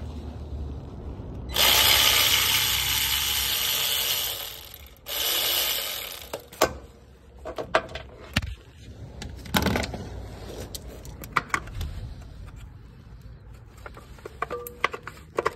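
Power tool spinning out the heat shield bolts under the car: one run of about three seconds, then a shorter second run, followed by scattered metallic clinks and taps of tools and parts.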